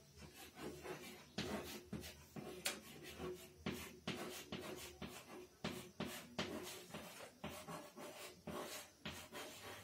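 White chalk writing on a chalkboard: a quiet, irregular run of short taps and scrapes as each stroke of the letters is drawn.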